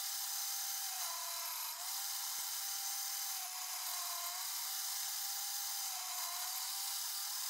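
Quorn tool and cutter grinder's wheel running and grinding relief into the teeth of an Acme tap fed across it by hand: a steady hiss with a motor tone that dips and rises every couple of seconds.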